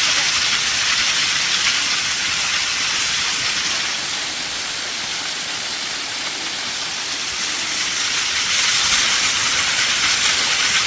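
Waterfall rushing: a steady hiss of falling water, dipping a little in loudness around the middle.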